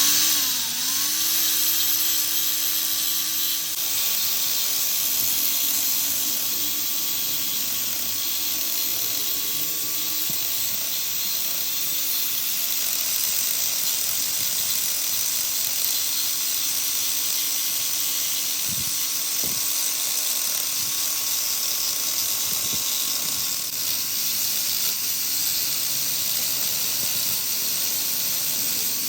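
Electric power tool running steadily with a high-pitched whine and a hiss. Its pitch dips briefly just after the start, then holds.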